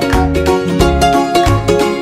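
Background music with plucked strings and a steady beat.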